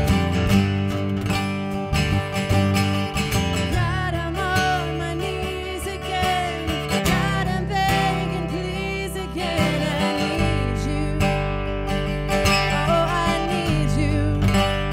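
Live worship-band music: acoustic guitar strumming over held bass notes, with a wavering melody line coming in about four seconds in.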